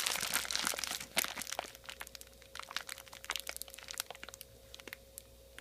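Packing paper in a parts shipping box crinkling and crackling as it is handled, dense for about the first second and a half, then in sparser crackles. A faint steady hum sits underneath.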